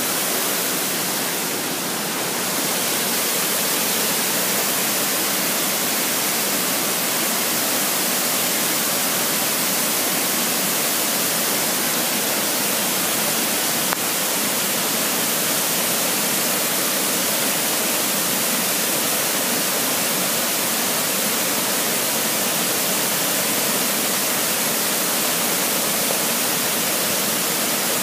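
Small waterfall spilling over boulders: a steady, even rush of falling water.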